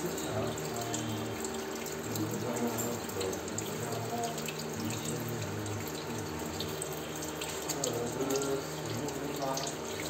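Tap water running steadily into a ceramic basin, splashing irregularly as a rose-ringed parakeet flaps its wet wings and bathes under the stream.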